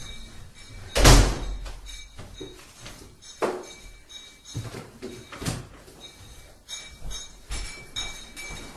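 A loud bang like a slammed door about a second in, then several fainter knocks and thuds, with faint steady high tones underneath.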